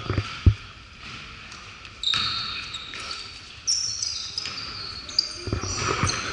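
Basketball being dribbled on a hardwood gym floor: a couple of bounces near the start and a run of bounces near the end, with high-pitched sneaker squeaks in between.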